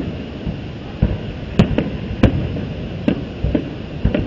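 Aerial fireworks shells exploding: a run of sharp bangs, irregularly spaced about half a second to a second apart, over a steady rushing background.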